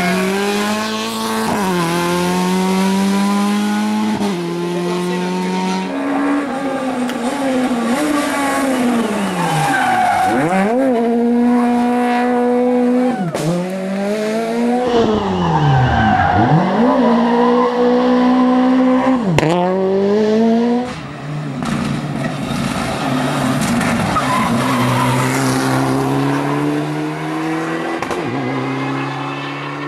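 Rally car engine accelerating hard, its pitch climbing and stepping up through the gears, then revs dipping sharply and climbing again four times in quick succession mid-way, with tyre noise. Near the end the engine runs at lower, steadier revs.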